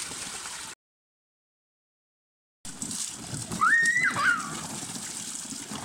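Children splashing water in an inflatable paddling pool, with one short high-pitched squeal from a child about three and a half seconds in. The sound cuts out completely for about two seconds near the start.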